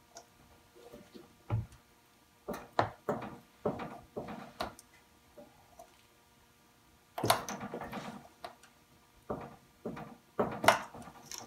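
Scattered plastic clicks and knocks as wire connectors are worked loose and unplugged inside a washing machine cabinet. A few single clicks come early, then louder clusters of clatter about seven seconds in and again near the end.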